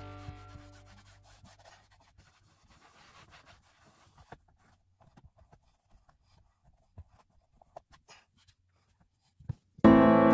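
Faint rubbing and scratching of a microfiber towel being wiped over a plastic-and-leather center console and cupholders, with scattered light clicks. Guitar music fades out at the start and comes back in loudly near the end.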